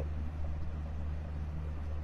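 Cruise boat's engine running steadily underway, a low hum, with a soft even hiss of wind and water over it.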